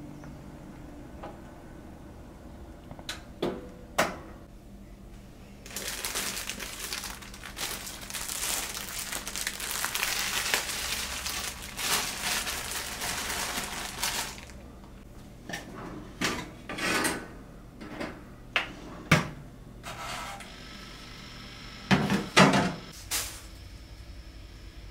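A plastic packaging bag rustling and crinkling for about eight seconds as it is handled, then a string of knocks and clinks of ceramic bowls and plates being moved on a shelf, the loudest near the end.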